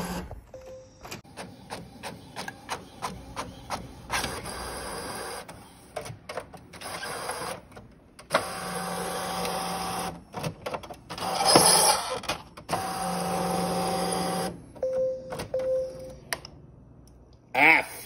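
Inkjet printer printing a sheet: a run of clicks from the paper feed, then the print carriage running in steady passes with a louder whir between them. Near the end there are two short beeps, the printer's alert for no paper or a paper jam.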